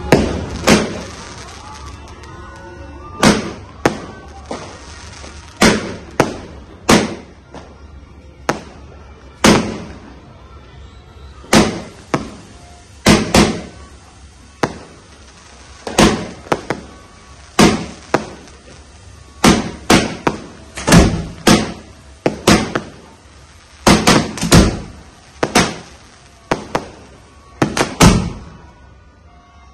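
Consumer fireworks going off at close range on a table of cakes and fountains: a long irregular string of sharp bangs, roughly one a second with some in quick pairs, over the hiss of a fountain spraying sparks.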